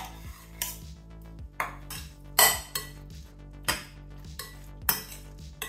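A metal spoon scraping a small stainless-steel bowl and stirring pasta in a glass mixing bowl, clinking against the bowls in about eight irregular strikes, the sharpest about two and a half seconds in.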